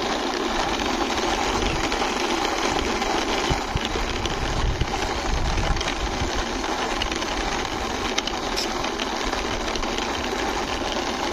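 Plastic wheels of a hand-pushed toy bus rolling over a rough concrete wall top: a steady grinding whirr with no breaks.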